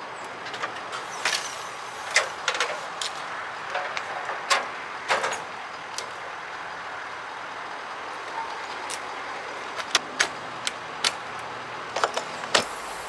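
An RV's folding metal entry steps and entry door being shut up: a series of short metal clanks and clicks as the steps are folded, then more clicks and knocks near the end as the screen door and door are closed and latched. A steady hum of traffic runs underneath.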